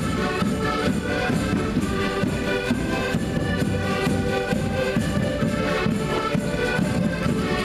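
A group of concertinas playing a folk tune together while marching, with a steady beat.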